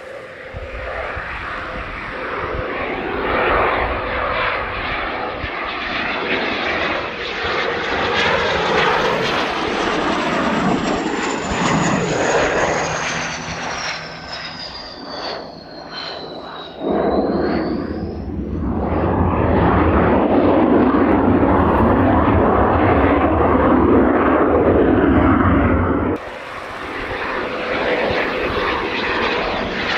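Jet aircraft engines running loud as an aircraft passes close by, with a high turbine whine that falls in pitch and then rises again. The sound jumps suddenly louder a little past halfway and drops suddenly near the end.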